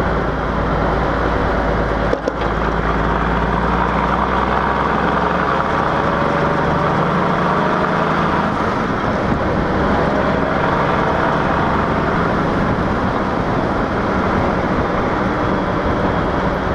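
Cummins 335 (855 cubic inch) inline-six diesel of a 1952 Kenworth CD521 truck running under way through dual 7-inch stacks, mixed with tyre and wind noise. The sound drops out briefly about two seconds in.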